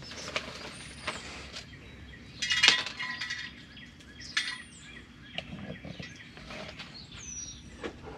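Wood chips rattling and clinking as handfuls go into the electric smoker's metal chip loader, with a louder clatter about two and a half seconds in. A bird chirps three times in the background.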